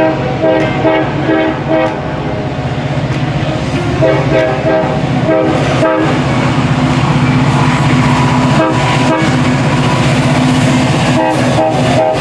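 Diesel freight locomotive's multi-note air horn sounding a string of short blasts as the train approaches. From about halfway in, the steady drone of the locomotive diesels working takes over, growing as the lead unit comes past.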